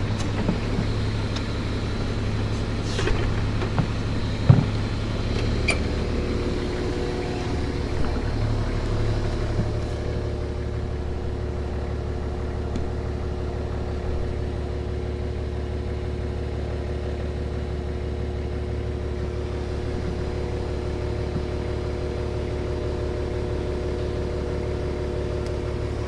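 Engine idling steadily, its low note settling a little lower about seven seconds in, with a couple of sharp knocks in the first five seconds.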